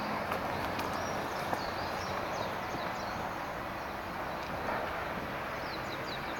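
Small birds chirping in short, high, falling notes, in clusters near the start and again near the end, over a steady outdoor rushing noise.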